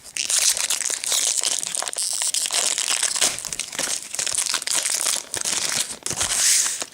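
Plastic booster pack wrapper crinkling steadily as it is torn and pulled open by hand, stopping near the end.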